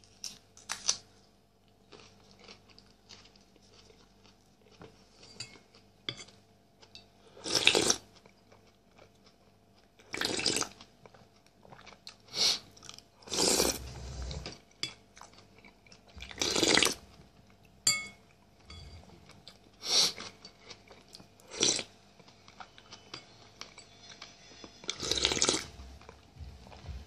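Close-up eating sounds of a man eating chicken-heart soup with white bread: chewing and mouth noises, with a dozen or so short loud bursts every two to three seconds.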